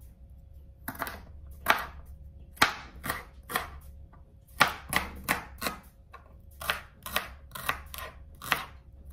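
Knife chopping rhubarb stalks on a chopping board: a string of sharp cuts starting about a second in. They are spaced out at first and come at about two a second in the second half.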